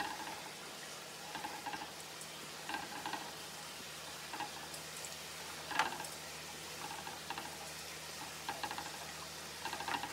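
Basting brush dabbing and spreading sticky glaze over cooked bacon strips on a metal broiler pan, and dipping into a saucepan of glaze: faint wet brushing with light scattered ticks, and a sharper knock about six seconds in.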